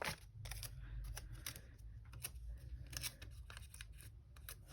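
Faint, irregular little clicks and rustles of a clear plastic sticker sheet being handled as tiny kiss-cut stickers are picked and peeled from their backing.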